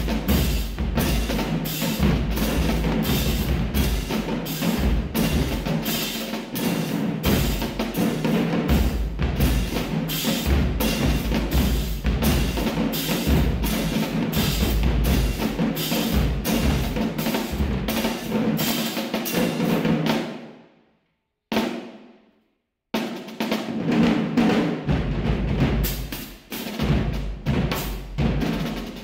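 Marching drumline playing a cadence: snare drum, crash cymbals and bass drums, with frequent cymbal crashes over the drumming. About twenty seconds in it stops abruptly, a single hit sounds in the gap, and the full line comes back in a couple of seconds later.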